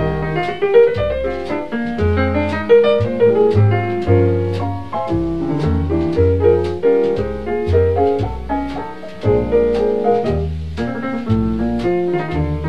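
Instrumental jazz music: piano to the fore over a low bass line, with light drums keeping time.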